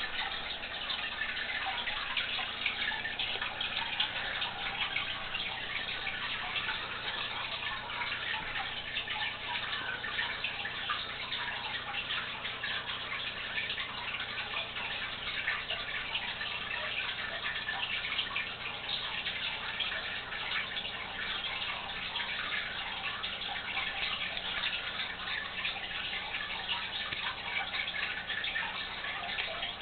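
Water trickling and bubbling steadily in a 125-gallon aquarium, a dense crackle of tiny splashes over a faint low hum.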